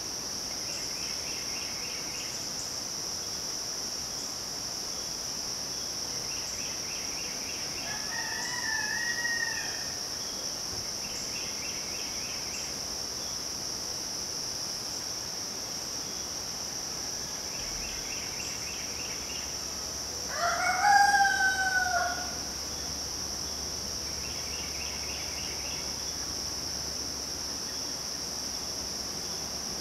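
Rooster crowing twice: a fainter crow about eight seconds in and a louder one about twenty seconds in. A steady high drone of summer insects runs underneath, with a songbird repeating a short phrase every few seconds.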